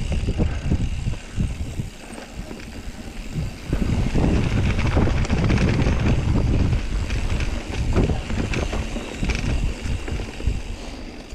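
Wind rumbling on a GoPro's microphone as a mountain bike rides down a dirt singletrack, with the tyres running over dirt and leaves and the bike knocking and rattling over bumps. It eases about two seconds in and picks up again from about four seconds.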